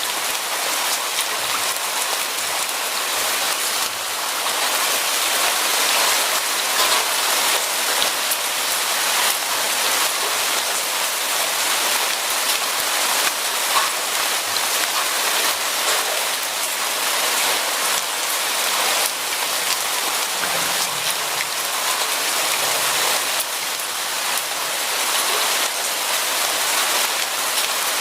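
Steady heavy rain falling on a surface, a dense even hiss with many fine drop patters.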